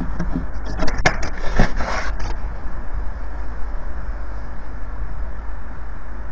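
Juvenile peregrine falcon scrabbling on the nest tray's rim as it takes off: a second and a half of sharp clicks and scrapes about a second in, over a steady low rumble.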